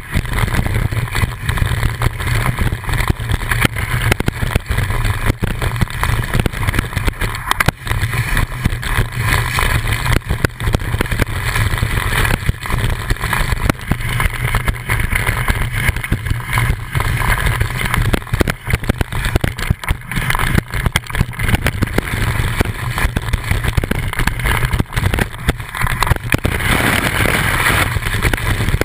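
Skis sliding fast over snow, heard from a camera mounted on the ski: a steady rushing scrape with dense rattling and a constant low rumble.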